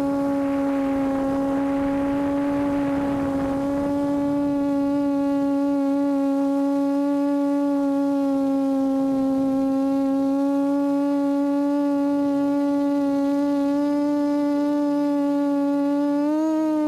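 QAV400 quadcopter's Lumenier 1100kv brushless motors and 8x4.5 propellers humming at hover: one steady pitched drone with many overtones, rising briefly in pitch near the end. A broader rushing noise lies under it for the first few seconds.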